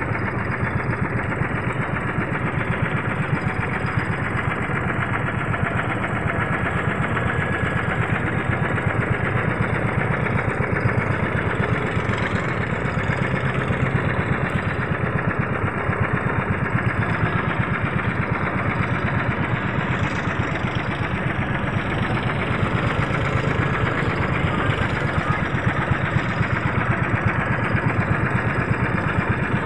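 Motorized outrigger boat's engine running steadily, heard from on board the boat, with a fast, even pulsing throb.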